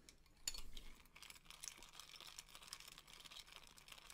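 Faint clinks of a metal spoon against a glass cereal bowl as puffed cereal and milk are stirred, the loudest clink about half a second in, followed by a soft, crackly scraping.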